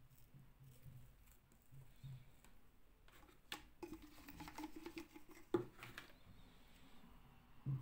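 Quiet handling noises of plastic fashion dolls and a clear plastic dome being picked up and set down on a tabletop: soft clicks and light knocks, busiest in the middle, with one sharper knock about five and a half seconds in.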